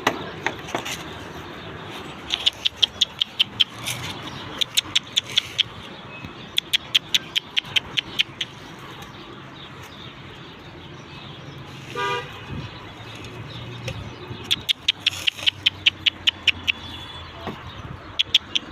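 Repeated quick runs of sharp clicks, several a second, each run lasting a second or two. About twelve seconds in there is one short, horn-like toot.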